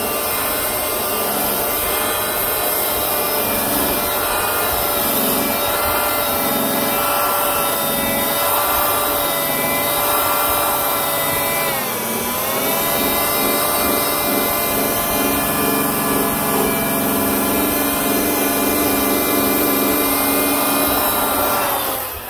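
Milwaukee buffer with a wool pad running, cutting compound into fresh paint on a bumper cover: a steady motor whine that dips in pitch about halfway through, recovers, and spins down to a stop near the end.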